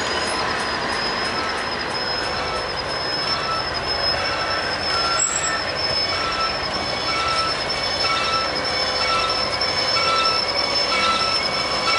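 Freight train cars rolling past with steel wheels squealing on the rails: a steady high-pitched squeal, joined about three seconds in by a lower squeak that repeats roughly every second.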